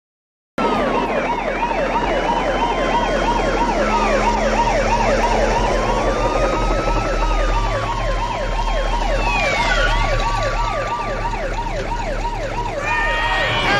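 Several police car sirens sounding together: a fast yelp sweeping rapidly up and down under slower rising-and-falling wails, over a low steady rumble. The sound starts suddenly about half a second in.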